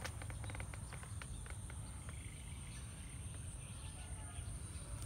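Steady, high-pitched insect calling, over a low rumble, with a few light clicks in the first second or so.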